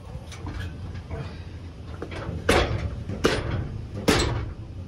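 Three heavy thumps about a second apart: a work boot shoving an air handler's fan motor along its mounting base. Each blow rings briefly in the sheet-metal cabinet, over a steady low hum.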